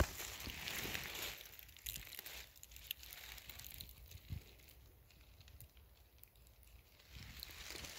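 Dry fallen leaves crinkling and rustling as a hand works in the leaf litter, with a sharp click at the start and another about four seconds in. The rustling fades to faint in the second half.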